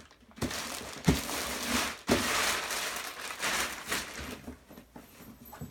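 Packaging wrap crinkling and rustling as it is handled and pulled off a new suitcase, with a couple of sharp knocks about one and two seconds in. The rustling dies down after about four seconds.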